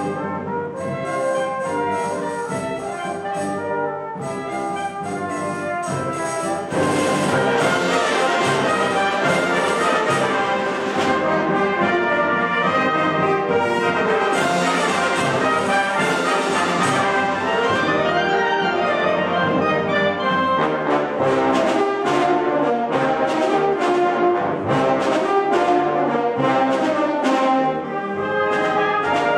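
Symphonic wind band playing a dance piece, with clarinets, saxophones, flutes and brass, the full ensemble coming in louder about seven seconds in.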